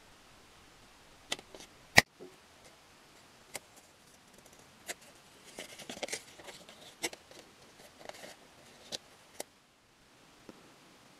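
Thin plastic film and a painted steel cleaver blade handled together: scattered sharp clicks and crinkling rustles, with one loud click about two seconds in and a longer crinkle around the middle.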